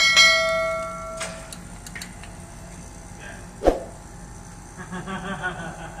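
A sharp metallic clang of metal striking metal that rings for about a second and a half, then a click and, a little past halfway, a single dull knock.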